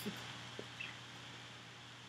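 Faint room hiss with a few short, soft clicks near the start and about half a second in.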